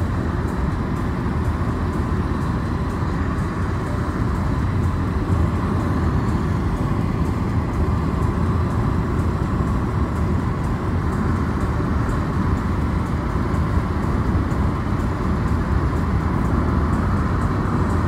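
Steady road noise of a car driving at speed, heard from inside the cabin: a low rumble of tyres and engine with a hiss of passing air, even throughout.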